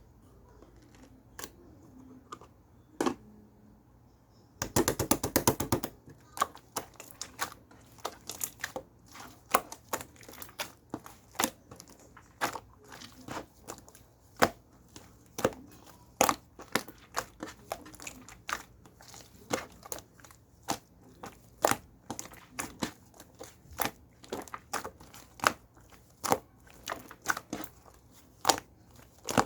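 Mint slime being squished and pressed by hand, giving irregular sharp pops and clicks. There is a dense crackling run about five seconds in, then about two or three pops a second.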